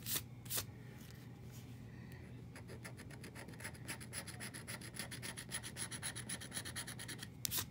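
A lottery scratch-off ticket being scraped with a green scratcher tool. The coating is rubbed off in quick, rapid back-and-forth strokes, with a louder stroke just after the start and another near the end.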